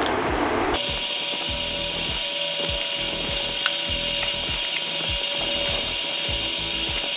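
Fast-forward sound effect: a steady, whirring hiss that cuts in abruptly about a second in and holds at an even level.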